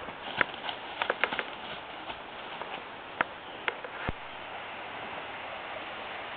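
Hurried footsteps crunching and snapping through brush and twigs on a forest floor: a run of sharp, uneven thuds and snaps for about four seconds. Then the steps stop, leaving a steady hiss.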